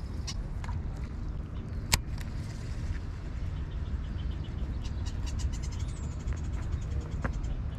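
Outdoor ambience with a steady low rumble and a single sharp click about two seconds in. Around five to six seconds in comes a quick run of high chirps ending in a short falling whistle.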